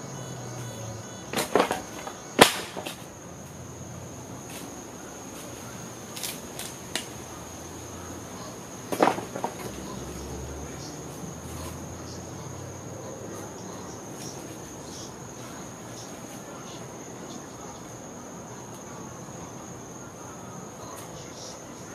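Steady high cricket trill, with a few sharp knocks of wooden pallet boards being handled: two close together about two seconds in, smaller ones around six and seven seconds, and another loud knock about nine seconds in.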